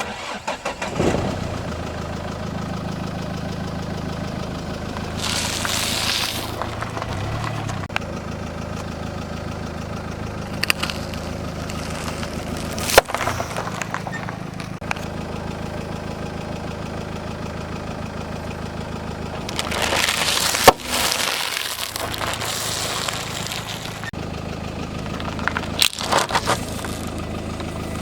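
A car engine idling while a tyre rolls over objects and crushes them. There are sharp cracks and crunches, the loudest about halfway through and again about three-quarters of the way through.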